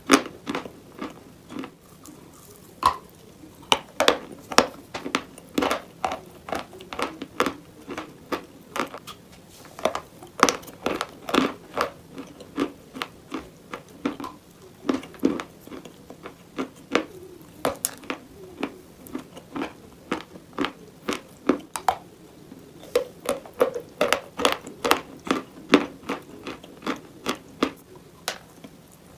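Chalk bowls being crunched: a long run of sharp, crisp crunches and cracks, a few every second, with brief pauses between bursts.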